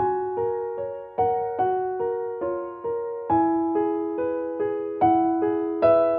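Background music: a gentle piano or electric piano melody, notes struck at an even, unhurried pace and left to ring.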